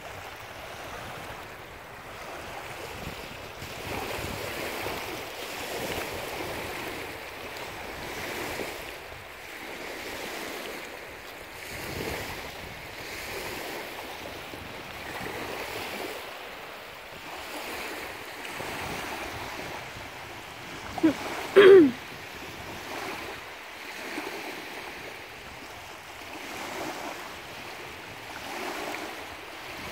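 Small lake waves lapping and washing on a pebble shore, swelling and easing every couple of seconds, with some wind. A little over two-thirds of the way in comes a short, loud pitched cry, twice in quick succession.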